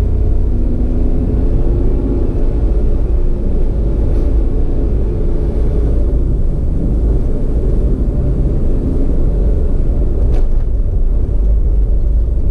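Vehicle travelling along a road: a steady, heavy low rumble of engine and road noise, with a faint wavering engine tone over it.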